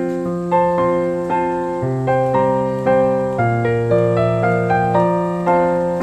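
Background music: a slow, gentle piano piece, with notes and chords struck about twice a second, each ringing on and fading.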